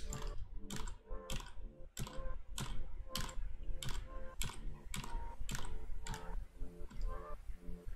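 Computer keyboard key tapped over and over, a crisp click about three times a second: the undo shortcut pressed repeatedly, stepping edits back one at a time.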